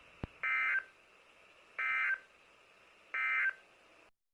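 Emergency Alert System end-of-message data bursts on NOAA Weather Radio: three short, identical digital squawks about a second apart, marking the end of the severe thunderstorm warning. A short click comes just before the first burst.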